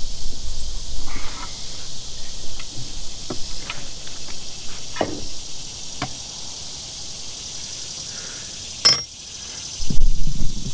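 Steady chirring of insects, crickets, with scattered knocks and clinks of metal parts being handled. A sharp, loud clack comes about nine seconds in, and heavier clattering follows about a second later.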